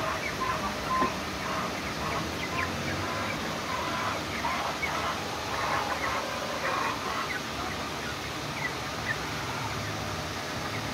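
A flock of young Light Sussex chickens, about nine weeks old, peeping and chirping as they forage, many short overlapping calls that thin out after about seven seconds, over a steady background hiss.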